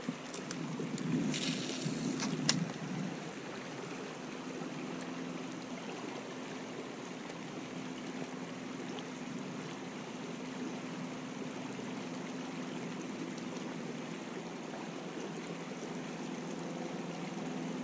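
Steady rushing of a flowing river, with one sharp click about two and a half seconds in.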